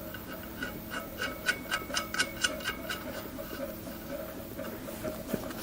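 Airbrush air hose's threaded fitting being screwed onto the compressor's air outlet by hand: a quick run of small clicks and rubbing, about four or five a second, thinning out after about three seconds.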